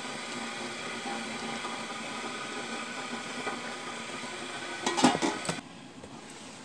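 Pork leg bubbling in water in an aluminium pot on high heat, a steady hiss. About five seconds in, the aluminium lid clatters onto the pot and the sound drops to a quieter, muffled level.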